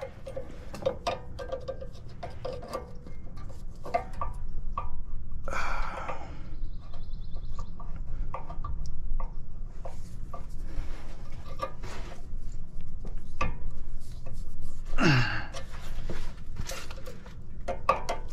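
Pliers clicking and scraping on a bent steel cotter pin and the castle nut of a car's lower ball joint as the pin is worked loose: irregular small metal clicks and taps, with a short breathy grunt about three-quarters of the way through.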